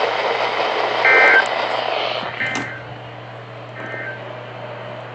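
Three short electronic data bursts from a weather radio's speaker, about a second and a half apart, the first loudest and the third faintest: the SAME end-of-message code that closes a NOAA Weather Radio warning. Steady radio hiss and a low hum run underneath.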